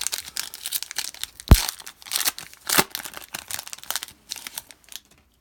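Plastic foil trading-card pack wrapper being torn open and crinkled by hand, a dense crackling rustle, with a sharp knock about one and a half seconds in and a smaller one near three seconds.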